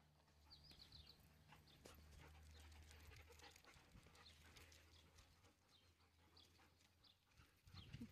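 Faint sounds of German Shepherd puppies: short high whines and yelps among light clicks, over a low steady hum that stops about seven seconds in.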